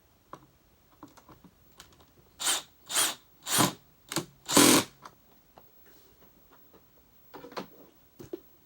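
Handling noise from reassembling a vacuum cleaner's plastic housing: a few light clicks, then five short, loud scraping or rustling bursts about half a second apart in the middle.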